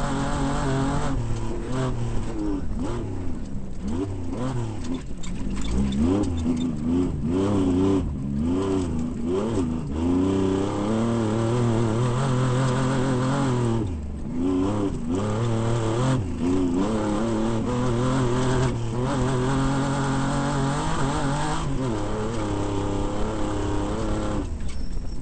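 Off-road race vehicle engine running hard, its revs rising and falling over and over as it accelerates and backs off, with a short drop in revs about 14 seconds in.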